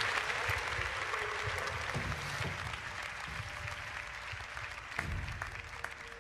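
Crowd applause, fading away gradually.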